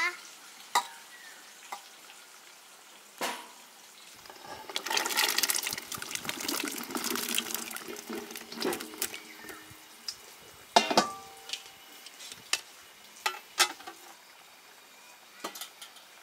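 Water splashing for about five seconds, starting about four seconds in, with scattered sharp knocks and clinks before and after it.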